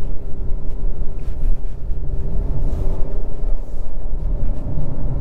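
Inside the cabin of a 2023 Honda CR-V on the move: its 1.5-litre turbocharged four-cylinder running, with road noise, heard as a steady low rumble with a faint steady hum.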